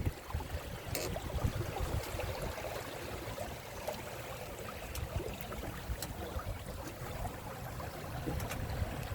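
Water rushing along the hulls of a Windrider 17 sailing trimaran as it moves, with low rumbling buffets on the microphone and a few faint ticks.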